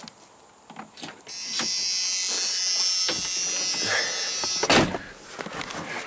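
Pickup truck door latch clicking as the door is pulled open, followed by about three seconds of loud, steady, high-pitched buzzing, which ends with a thump.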